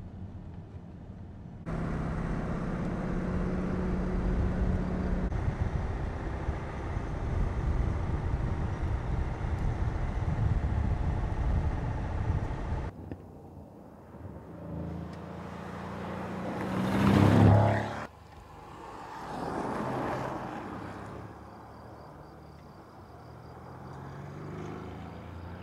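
Mercedes-AMG C63 Estate's twin-turbo V8 running hard, with a steady loud drone that cuts off abruptly about halfway through. The engine then builds to a loud pass that stops suddenly, swells once more, and goes on more quietly toward the end.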